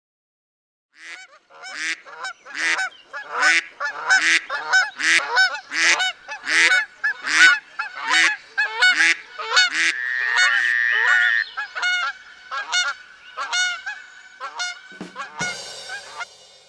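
A flock of geese honking: a long run of short, nasal calls, about two a second, overlapping at times, fading out near the end.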